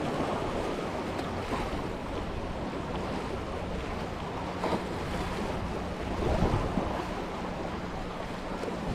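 Sea surf washing against the shore, with wind noise on the microphone. One wave swells up louder about two-thirds of the way through.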